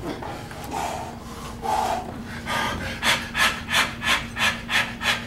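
A man panting hard under the strain of a heavy leg press set. The breaths start as a few soft puffs, then turn into fast, even panting at about three breaths a second from about halfway through.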